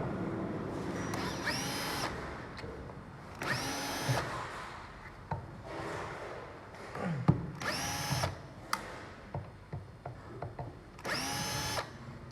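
Small electric screwdriver run in four short bursts, each spinning up to a steady whine and stopping within about a second, with light clicks and knocks of handling in between.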